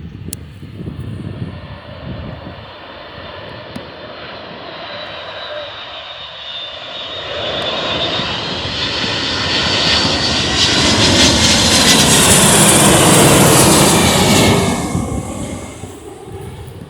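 Jet airliner passing close by: its engines grow steadily louder over about ten seconds, with a high whine that slides in pitch. The sound peaks near the end, then falls away quickly.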